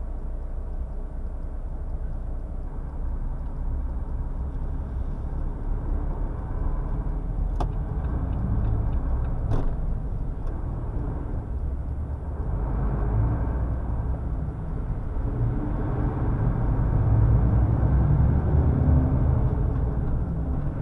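Truck engine and road rumble while driving, heard from inside the cab, growing louder in the second half. Two brief clicks come near the middle.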